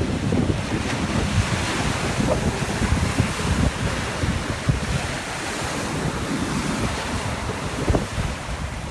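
Storm wind blowing hard and buffeting the microphone in irregular gusts, over the steady rush of waves on the water.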